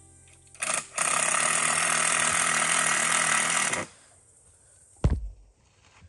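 Handheld power drill running in one steady burst of about three seconds, after a short blip, as it drives into a tree trunk. About a second after it stops comes a single sharp thump.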